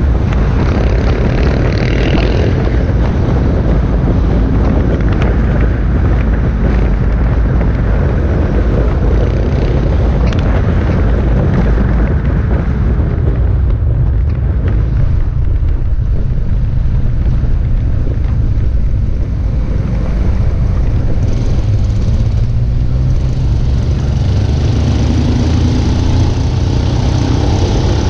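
Motorcycle engines running in a large motorcycle parade, a steady low rumble, with one engine rising in pitch near the end as it speeds up.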